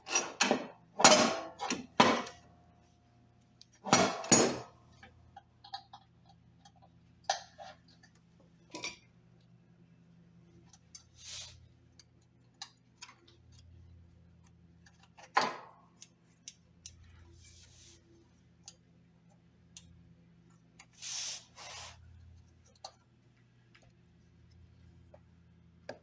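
Metal parts and tools clinking and knocking during work on a riding mower's deck: a quick cluster of sharp knocks at the start, one ringing briefly, another knock about four seconds in, then scattered light clicks with one louder knock past the middle and a short scrape near the end.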